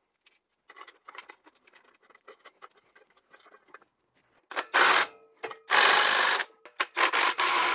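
A cordless power tool driving in the exhaust front pipe's factory bolts, after a few seconds of faint clicking and tapping: it runs in short bursts of about a second each, one after another.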